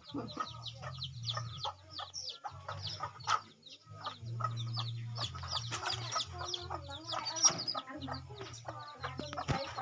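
A hen clucking among a stream of short, high, falling cheeps, several a second, busiest a little past the middle.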